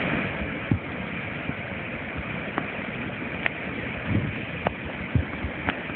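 Steady rushing noise of fast-flowing floodwater, with occasional sharp clicks and knocks.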